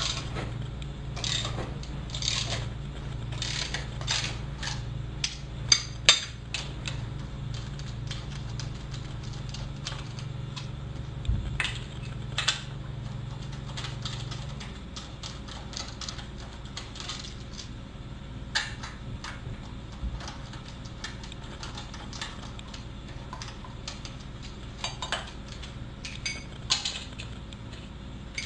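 Irregular sharp metallic clicks and clinks of hand tools and lug hardware while a wheel spacer is fitted on a Honda CR-V's wheel hub, over a steady low hum that stops about halfway.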